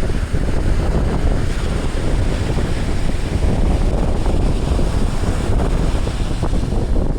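Wind buffeting the microphone with a loud, uneven low rumble, over the steady hiss of surf washing on the beach.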